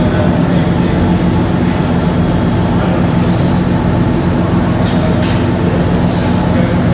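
A ferry's engines running steadily under way, a loud low drone with a constant hum, heard from inside the passenger cabin.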